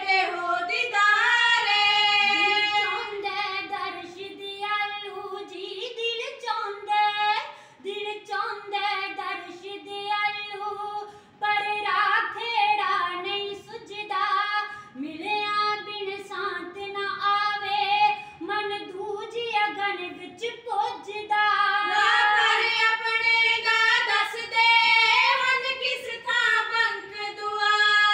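Punjabi kavishari sung unaccompanied by women's voices together, in high, long held phrases with brief pauses for breath.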